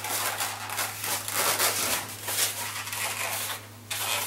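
Latex modelling balloons (Qualatex 260s) squeaking and rubbing against each other and the hands as they are twisted and handled, in irregular streaks, with a brief lull near the end. A steady low hum sits underneath.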